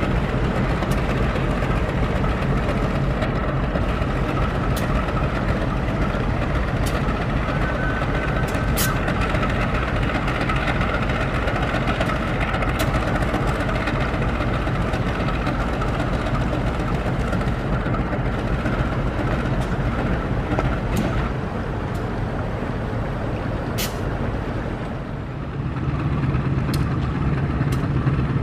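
Diesel-electric locomotive engine running steadily as the locomotive moves slowly along the track with the Kirow crane train, with scattered sharp clicks. The engine hum dips briefly near the end, then grows stronger as the locomotive comes close.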